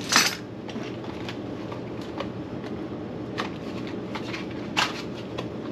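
Exhaust hangers and clamps being handled: scattered light clicks and knocks, with a sharper one just after the start and another about five seconds in, over a steady low hum.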